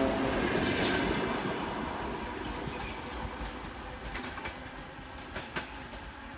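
ET4A electric multiple unit moving away along the track, its rumble and rail noise fading steadily. There is a brief burst of hiss about a second in, and faint clicks of wheels over rail joints near the end.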